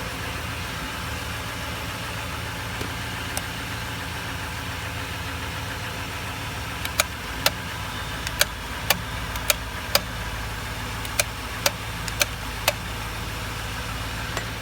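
An engine running steadily at idle, with a low steady drone. In the second half come about ten sharp clicks, mostly in pairs about half a second apart.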